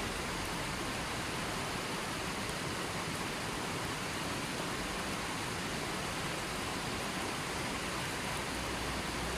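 River water flowing and rushing over rocks as a steady, even wash of noise.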